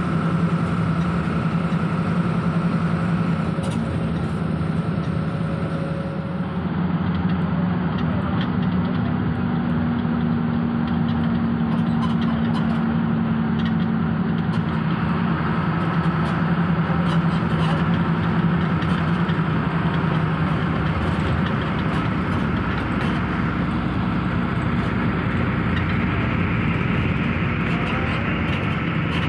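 Intercity bus heard from inside the cabin while driving at road speed: a steady low engine drone under constant road and tyre noise.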